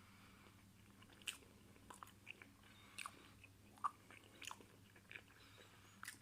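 Faint, close chewing of a mouthful of microwaved chicken burger: irregular soft clicks and crackles as it is chewed.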